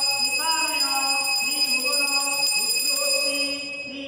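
A puja hand bell rung without pause, with a voice chanting over it; the bell stops near the end while the chanting goes on.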